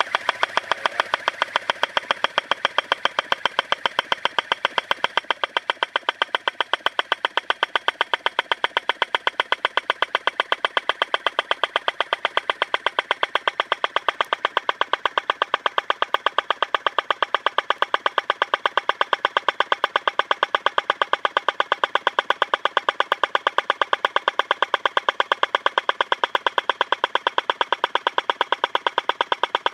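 Hammerhead 8-inch pneumatic pipe-bursting impactor hammering with rapid, even strokes, several a second, as it breaks up the old 6-inch PVC sewer line while being pulled through.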